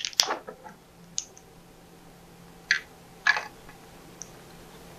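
Hard plastic playset pieces being handled: a handful of short, sharp clicks and taps at irregular intervals, the loudest at the very start.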